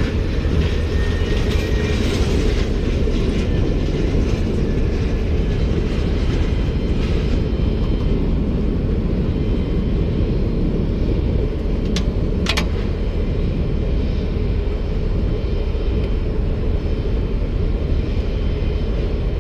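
Steady low mechanical rumble of ramp ground equipment, with two sharp clicks about twelve seconds in.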